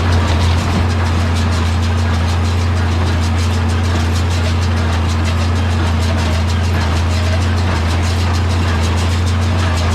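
Tractor engine running steadily while pulling a John Deere small square baler, a constant low drone with a faint, rapid, even ticking of machinery over it.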